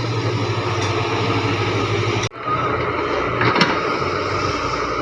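Diesel engine of heavy earthmoving machinery running steadily. The sound cuts out for an instant a little over two seconds in, and a couple of sharp metallic clanks come about three and a half seconds in.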